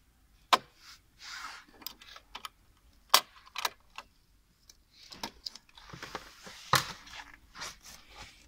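Sharp metallic clicks and rattles with rustling between, from a desktop CPU socket and processor being handled as the new processor is fitted. The loudest clicks come about half a second in, twice around three seconds in, and near seven seconds.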